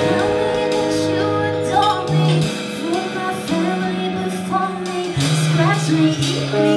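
A woman singing a musical-theatre pop song with a live band: held bass notes and electric guitar under her voice.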